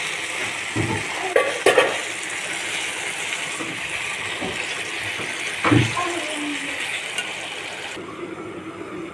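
Water poured into a hot pan of frying vegetable curry, which sizzles steadily, with a few clatters of the spatula and vessel against the pan. Near the end the sizzle turns muffled as a steel lid goes on.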